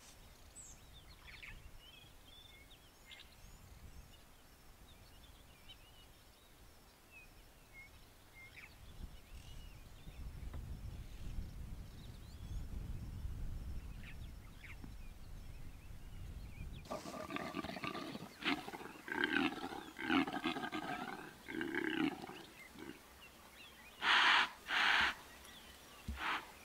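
Male impala roaring: a run of loud, rough calls starts about two-thirds of the way in and ends with two loud blasts close together near the end. Before the calls there are faint bird chirps over a low rumble.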